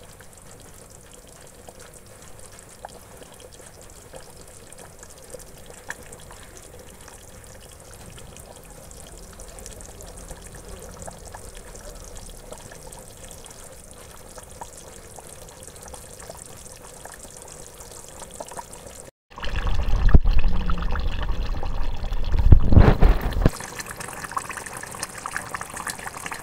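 Pork curry bubbling as it simmers in an aluminium pot, a soft steady bubbling with small pops. About 19 seconds in, after a break, it becomes much louder for about four seconds, with a deep rumble, then eases back.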